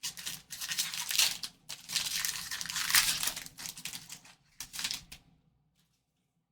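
Foil trading-card pack wrapper being torn open and crinkled, in a run of rustling tears that stops about five seconds in.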